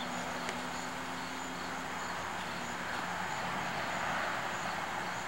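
Outdoor garden ambience: a steady hiss with insects chirping in an even, pulsing rhythm and a faint low steady hum underneath.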